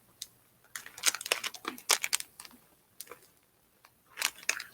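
Plastic snack package crinkling in two short spells of crackling, handled close to the microphone.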